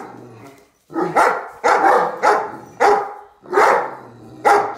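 Big dog barking: about six loud barks in a row, starting about a second in.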